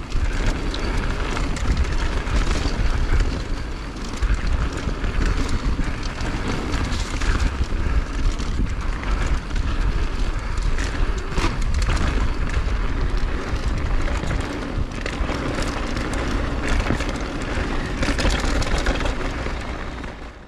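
Wind buffeting the microphone in a heavy rumble during a fast downhill snow run, with edges scraping and hissing over hard-packed snow.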